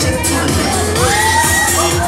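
Loud dance music with a heavy, steady beat, with crowd voices shouting over it.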